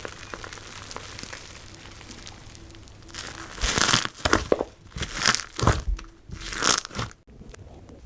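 Crunchy slime being worked for ASMR: a faint fine crackling at first, then several loud crunches in quick succession in the second half.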